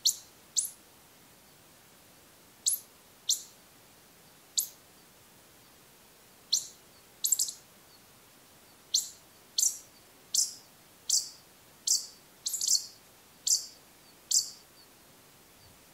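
Hokkaido pika (Japanese pika) giving a series of about fifteen short, sharp, high-pitched calls, at first in spaced pairs and then coming faster from about nine seconds in. This is the calling exchange between a male and a female that is heard only in the autumn pair-formation season.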